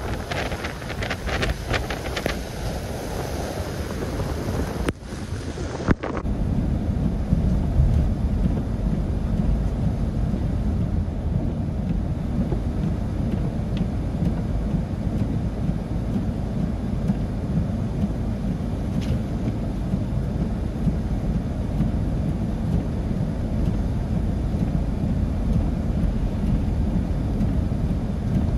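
Wind buffeting the microphone in a snowstorm, a heavy low rumble. Before a cut about five seconds in, a brighter hiss.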